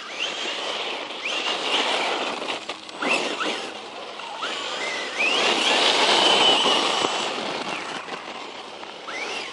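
Circuit Thrash 1/10 scale RC truck being driven, its brushless motor whining up in pitch again and again as the throttle is punched. There is a longer, held high whine at speed about halfway through, over a steady noise of tyres and drivetrain.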